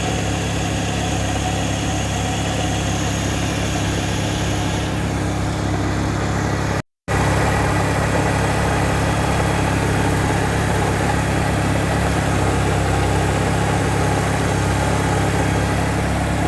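VW Vento engine idling steadily, with the noise of a worn bearing in one of its pumps, which the owner calls a bad pump bearing. The sound cuts out for a moment about seven seconds in, then carries on the same.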